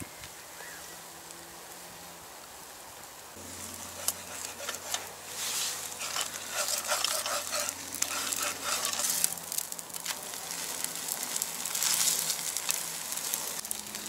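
Crepe batter sizzling in an oiled cast-iron frying pan over a wood fire, with clicks and scrapes of a spatula working the pancake in the pan. The sizzle grows louder and busier about three seconds in.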